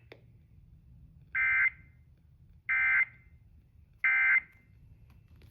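Specific Area Message Encoding (SAME) end-of-message data bursts from a NOAA Weather Radio emergency alert broadcast: three short, identical buzzy chirps about a second and a half apart, marking the end of the warning.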